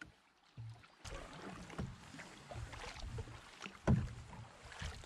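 Canoe paddling: a single-bladed paddle dipping and pulling through the water in repeated strokes, with splashes and water washing along the hull. It gets louder from about a second in, and the sharpest stroke comes near four seconds in.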